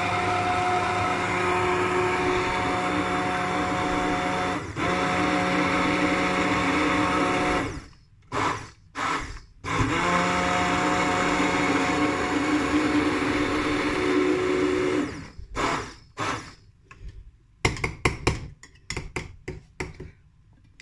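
Hand-held immersion blender running in a glass jug of smoothie, a steady motor whine as it purées the fruit. It runs for about eight seconds, stops, gives two short pulses, then runs again for about five seconds. Near the end come several short bursts.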